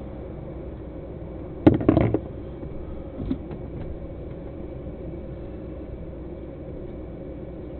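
Steady low hum inside a stationary truck cab, broken about two seconds in by a brief cluster of loud knocks and rattles, then a few lighter clicks a second or so later.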